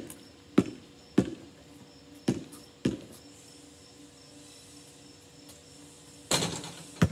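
Basketball bouncing on hard ground as it is dribbled, four bounces in the first three seconds, then a pause. Near the end a short swish as the shot drops through the net, followed by one more bounce of the ball.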